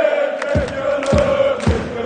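Football supporters chanting together in the stand, holding a long sung note. About half a second in, a steady beat of low thumps starts, about twice a second.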